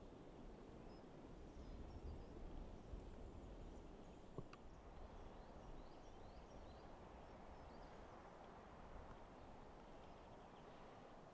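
Quiet woodland ambience: a low steady rumble with faint, scattered bird chirps, and a single small click about four seconds in.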